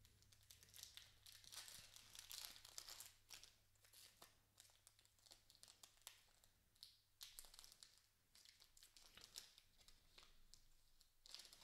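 Foil wrapper of an Upper Deck hockey card pack being torn open and crinkled by hand: faint crackling in spurts, densest over the first few seconds, with a few more bursts later on.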